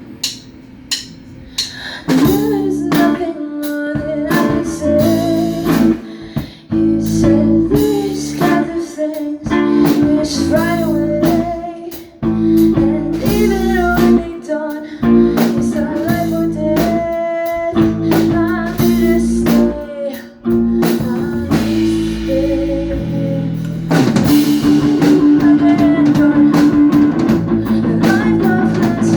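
Rock band playing live with a drum kit and guitars. The song opens with scattered drum hits, the full band comes in about two seconds in, and it gets louder near the end.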